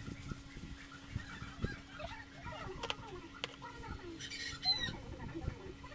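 Rustling and squishing of plastic-gloved hands working hair dye through wet hair, with small knocks, and short bird-like calls in the background, the loudest about four to five seconds in.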